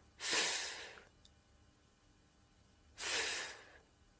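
A voice pronouncing the English letter sound /f/ on its own, twice: a breathy "fff" hiss, each under a second long.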